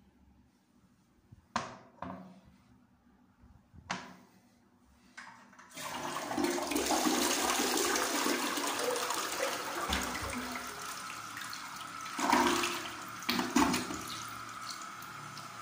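Franz Viegener Napoli toilet flushing: a few sharp clicks, then about six seconds in a loud rush of water through the bowl with two louder surges near the end. The water then keeps running more quietly and steadily as the toilet refills.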